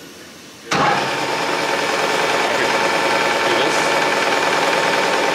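Colchester 13 metal lathe switched on about a second in, then running steadily with a constant machine whine while the carriage moves slowly under automatic feed.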